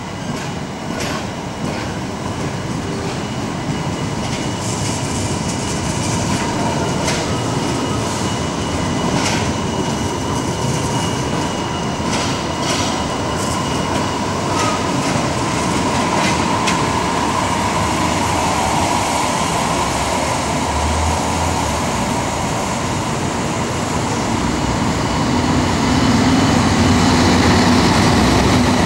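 Articulated tram passing close, its wheels clicking over rail joints with a faint steady whine. Near the end a city bus drives by and its engine grows louder.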